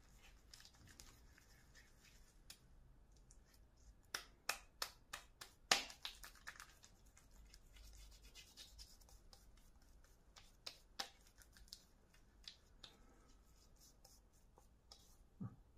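Fingers spreading shaving lather over the face and neck: faint, sparse wet clicks and crackles, in a quick cluster about four to six seconds in and a few scattered ones later.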